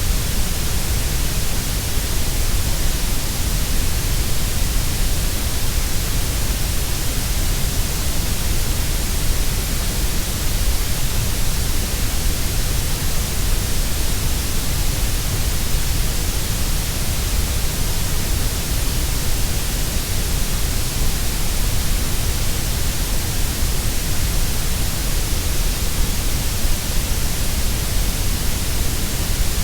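Grey noise: steady, unchanging artificial noise, fullest in the deep bass and the high hiss and thinner in the middle range.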